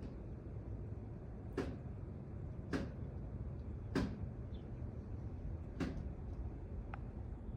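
A sleeping call duck's bill smacking shut as it opens and closes its mouth, about five short, sharp clicks spaced a second or so apart, over a low steady background hum.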